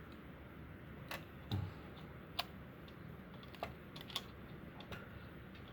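Light, scattered plastic clicks and taps, about six or seven irregularly spaced, with one soft low thump about a second and a half in, as a replacement Uconnect touchscreen and its ribbon-cable tabs are handled and fitted.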